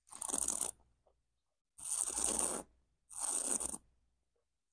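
Wine taster slurping, drawing air through a mouthful of wine to aerate it on the palate: three hissing slurps, each under a second long.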